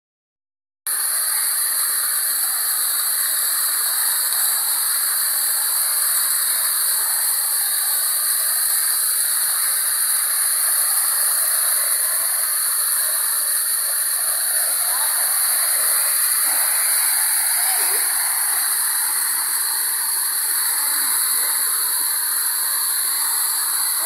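Waterfall pouring down rock into a pool: a steady rush of falling water that starts about a second in and holds at an even level.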